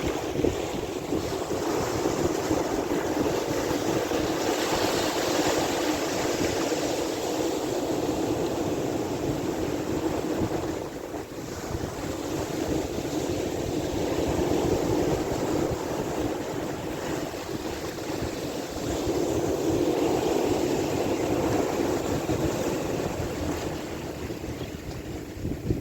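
Sea waves washing continuously with wind buffeting the microphone, swelling and easing every few seconds, with a brief lull about eleven seconds in.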